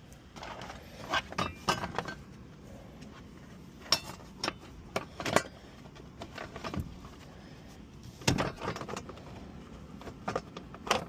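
Scattered clicks, clinks and light knocks of tools, screws and parts being handled while reassembling under a car's dashboard. The footage is sped up, so the sounds come quickly.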